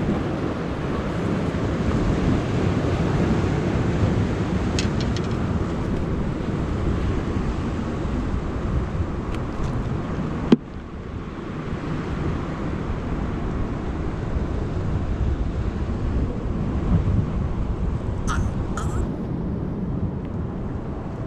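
Wind buffeting the microphone over the steady wash of surf against the jetty rocks, with a few faint clicks near the end.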